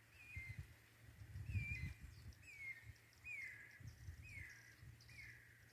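Guira cuckoo (anum-branco) calling: a series of six short whistled calls, each falling in pitch, about one a second, over a faint low rumble.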